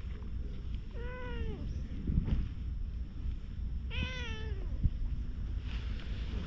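A domestic cat meowing twice, about a second in and again about four seconds in, each call rising and then falling in pitch. A steady low rumble lies underneath.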